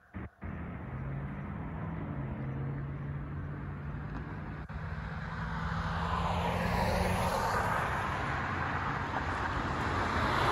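Road traffic on a multi-lane road: vehicles driving past, their tyre and engine noise swelling and fading, with a steady low hum under it for the first several seconds. The sound starts abruptly out of near silence, and a second vehicle approaches near the end.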